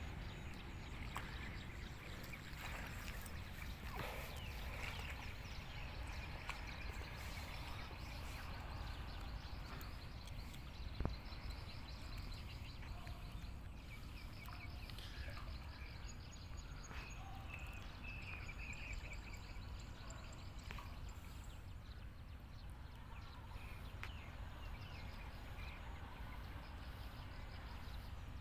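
Outdoor ambience: a steady low rumble with faint, repeated high chirping and trilling calls of small animals, and scattered light clicks, with one sharp knock about eleven seconds in.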